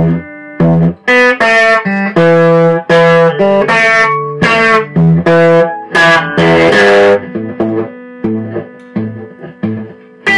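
Electric guitar played solo: a run of loud picked notes and chords, then softer, sparser notes over the last few seconds.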